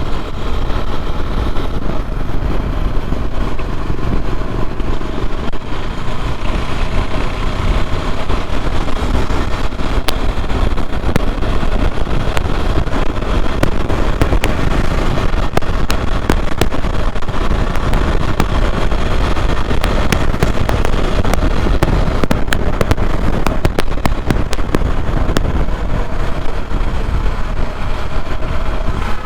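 KTM Duke 390's single-cylinder engine running steadily at riding speed, heard from the rider's seat with road and wind noise. Many short, sharp crackles or clicks are scattered through the second half.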